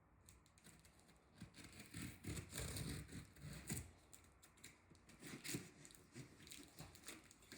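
Packaging being handled: irregular rustling, scraping and tearing of cardboard and wrapping, starting faintly and getting busier from about a second and a half in.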